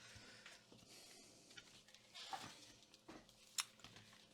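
Near silence with faint handling noise: a few light clicks and soft rustles as the opened laptop is handled.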